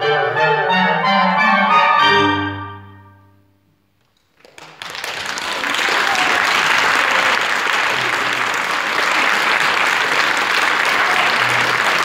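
Final chord of an octet for four clarinets and string quartet (two violins, viola, cello), held and then dying away about three seconds in. After a moment of silence, audience applause starts and builds into steady clapping.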